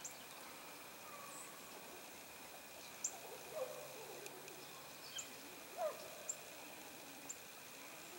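Faint outdoor ambience by a pond: scattered short, high bird chirps and a couple of lower calls over a steady faint hiss.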